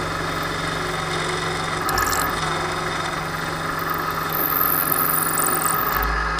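Milling machine spindle running steadily as a 3/16-inch drill bit feeds down through a metal tube. A high, hissing cutting sound comes about two seconds in and again from about four and a half seconds.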